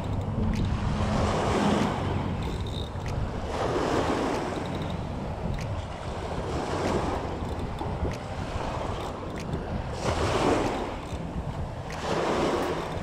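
Small bay waves washing onto the shore, swelling and fading in a surge every two to three seconds, with wind on the microphone.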